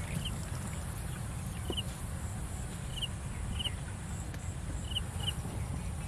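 A bird giving a short high chirp several times, often two in quick succession, over a steady low rumble.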